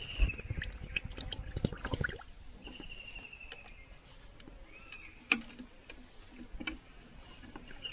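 Water splashing and sloshing into a plastic sprayer tank to mix an insecticide powder, for about the first two seconds. Then faint handling clicks follow, with one sharper knock about five seconds in.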